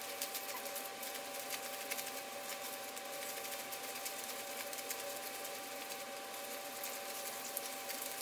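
Paper dollar bills rustling and crackling in quick small ticks as they are counted out by hand, with a faint steady hum underneath.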